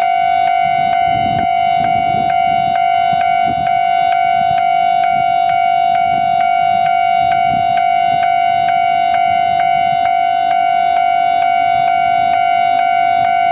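Japanese railway level-crossing alarm ringing continuously, a steady electronic bell tone struck again about three times a second. A low rumble underneath fades over the first few seconds.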